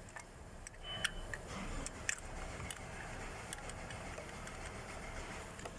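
Scattered light clicks and ticks of hands and tools working on the coil-on-plug ignition coils of a Lexus LX 570's V8, over a faint low background rumble.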